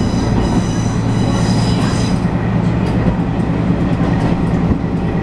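Train running along the track, heard from inside the car: a steady low rumble and hum of the running gear, with the wheels squealing briefly on a curve about half a second in, dying away after about two seconds.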